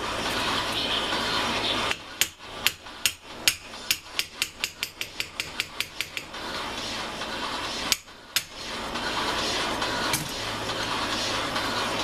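A run of sharp taps on a metal part that come faster and faster over about four seconds, then two more knocks. A steady background hiss lies under the taps.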